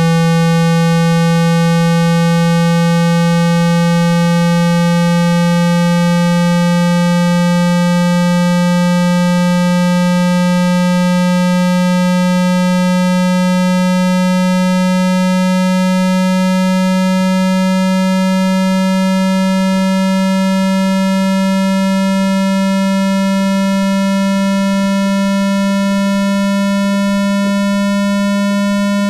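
Synthetic water-eject tone for clearing water and dust from a phone speaker: a loud, low, buzzy tone with a row of overtones, slowly rising in pitch.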